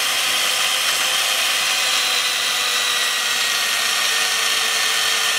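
Old Oster two-speed electric hand mixer running steadily, its twin beaters whisking egg, oil and sugar batter in a stainless steel bowl. A steady motor whir with a constant level throughout.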